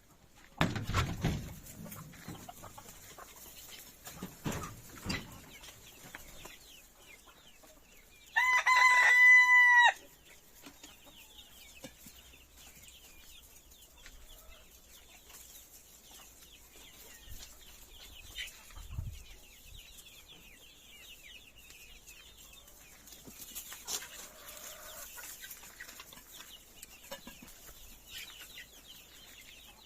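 Domestic chickens: a rooster crows once, a loud call of about a second and a half held at a steady pitch, about eight seconds in, while hens cluck softly throughout. A few low thumps come near the start.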